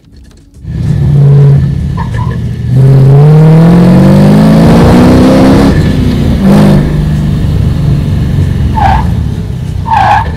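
LS3 V8 in an E36 drift car accelerating hard: the revs climb steadily for about three seconds, drop, then the engine runs on under load.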